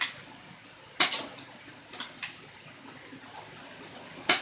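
Airsoft gun firing a few single shots, each a short sharp crack, irregularly spaced; the loudest come about a second in and near the end, with fainter ones between.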